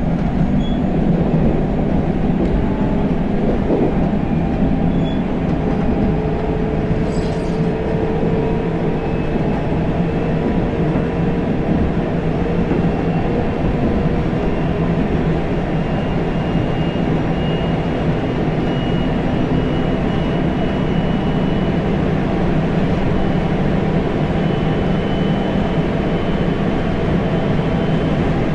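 Interior running noise of a JR 373 series electric train's motor car at speed: a steady rumble of wheels on rail, with a faint whine that creeps slightly up in pitch.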